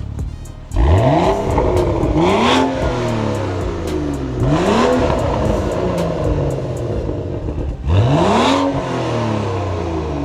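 BMW turbocharged straight-six with a freshly fitted titanium aftermarket exhaust, revved hard three times. Each time the engine pitch climbs quickly and then falls away more slowly.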